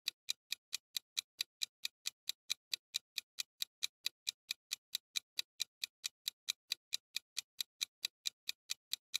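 Countdown timer ticking sound effect: an even, quick clock tick about four times a second, every tick the same.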